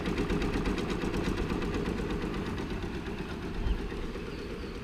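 Baby Lock Alliance embroidery machine stitching a light outline design in its hoop: a fast, even needle rhythm that grows fainter toward the end, with a low bump a little before the end.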